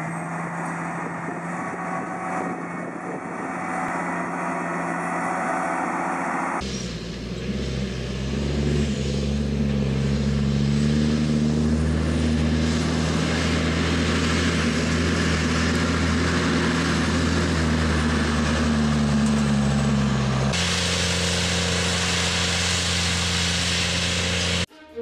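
Diesel engines of large slurry-spreading farm machines running steadily under load in the field, heard across three clips that change abruptly about 7 and 21 seconds in. The sources are a Vredo self-propelled slurry injector, then a tractor pulling a slurry tanker, then a tractor-drawn slurry tanker with cultivator.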